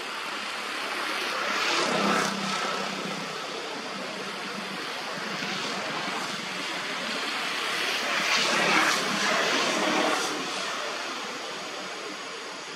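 Engine noise rising and fading twice, about two seconds in and again around eight to ten seconds, over a steady background hiss.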